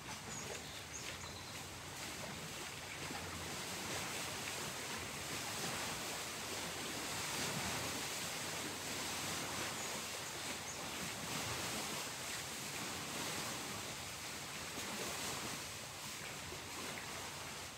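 Steady outdoor wash of noise that swells slowly and eases again over several seconds, with a few faint high chirps.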